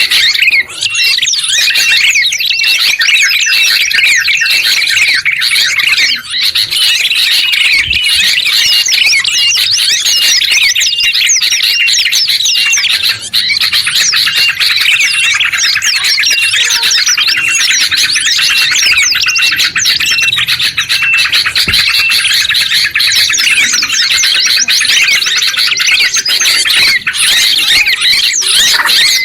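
Dense chorus of several songbirds layered together, with rapid overlapping chirps and trills running without a break.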